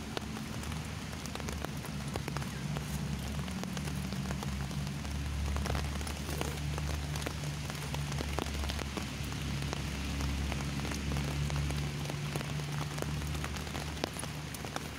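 Light rain (drizzle) falling, with many separate drops ticking close by and a low steady hum underneath.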